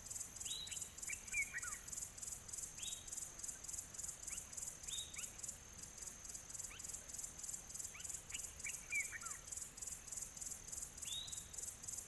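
A steady, rapidly pulsing high insect chorus, like crickets, with scattered bird calls over it: short down-slurred whistles and a few quick clusters of chirps every couple of seconds.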